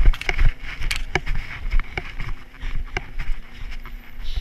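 Footsteps of someone running on paving, each stride a knock and thump through a body-worn GoPro, with wind buffeting the microphone.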